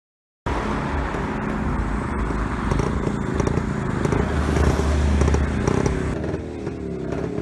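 Small vintage motorcycle's engine running as it is ridden past. The sound cuts in abruptly about half a second in, is loudest around the middle, then fades somewhat as the bike moves away.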